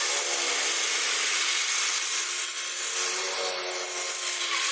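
Homemade grass cutter built from an electric angle grinder, running steadily with a high motor whine and a continuous hiss as its blade cuts grass.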